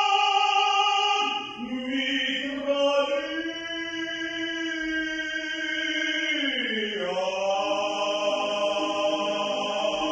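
Slow, wordless, choir-like vocal music in long held notes. The pitch steps down about a second in and slides lower again near seven seconds.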